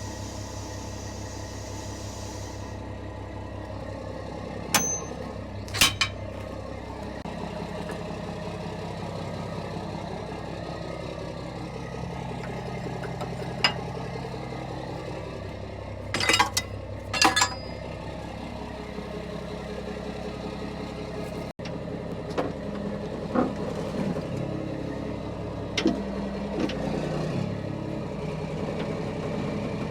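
A heavy diesel engine running steadily, its pitch rising a little about seven seconds in. A handful of sharp clicks and knocks sound over it, a close pair of them about halfway through.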